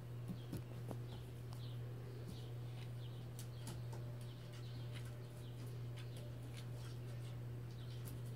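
Rapid short high chirps, each falling in pitch, repeating irregularly over a steady low hum, with a few faint clicks.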